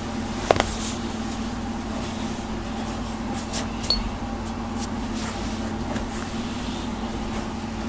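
Steady low hum in the room, with soft strokes of a hand rubbing over a cat's fur every second or so. A short sharp click about half a second in is the loudest sound, and a smaller one comes near four seconds.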